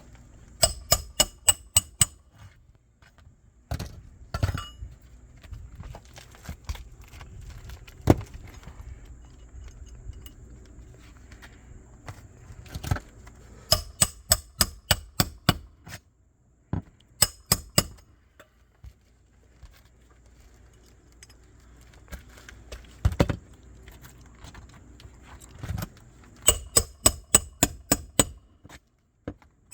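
Hammer blows on a steel roof snake, driving new roofing nails under a shingle. The strikes come in four quick runs of several blows each, every blow ringing with a bright metallic ping, with single knocks and handling noise between runs.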